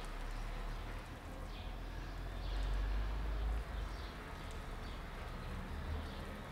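Quiet outdoor ambience: a steady low rumble with a few faint bird chirps.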